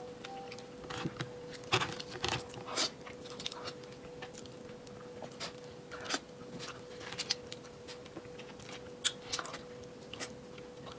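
Close-up eating sounds of a person eating soft durian flesh by hand: irregular wet lip smacks and mouth clicks while chewing, a few each second. A faint steady tone hums underneath.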